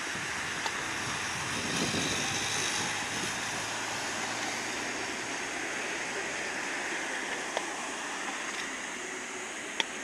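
Twin-engine widebody airliner's jet engines at take-off thrust, a steady roar heard from behind as it rolls and lifts off, easing slightly toward the end. A few brief sharp clicks sound over it, the loudest near the end.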